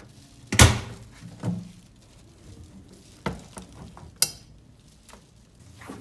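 A loud clunk about half a second in, then a softer thump and a few lighter knocks and clicks, one with a brief metallic rattle: laundry being handled at a washing machine.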